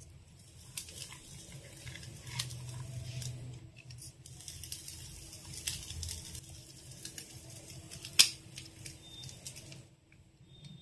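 Hand-held wooden idiyappam press being squeezed to force rice-flour dough through its small-holed die, giving irregular clicks, with one sharp click about eight seconds in; the clicking stops shortly before the end.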